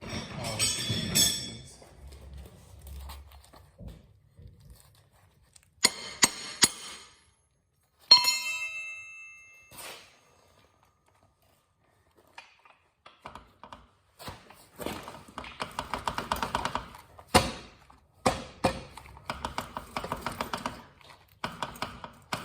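Hammer blows on metal parts of a motorcycle's rear wheel assembly. A hard strike about eight seconds in rings on with a metallic ping, and in the second half there are runs of rapid, light metallic clicking and tapping.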